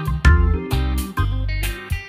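Background music with a steady beat of about two strokes a second over deep bass.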